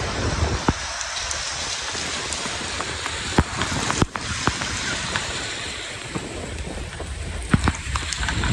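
Heavy downpour: a steady hiss of rain pouring onto a wet road, with large drops striking the camera as sharp clicks every so often.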